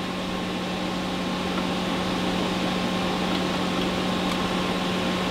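Steady hum and fan noise of running electronic test equipment: an even whirr with a low steady tone.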